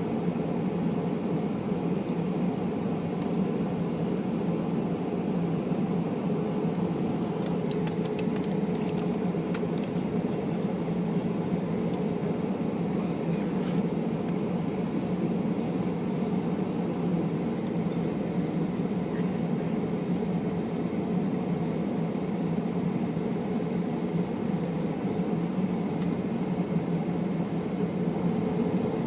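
Steady cabin noise inside a Boeing 737-800: the low rumble and rush of its CFM56 engines and the airflow, holding at an even level, with a few faint ticks about nine seconds in.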